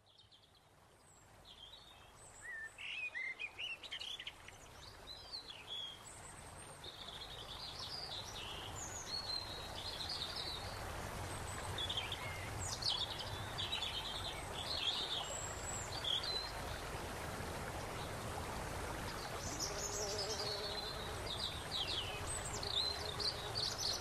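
Birdsong ambience: many small birds chirping and trilling over a steady outdoor background hiss, fading in over the first several seconds.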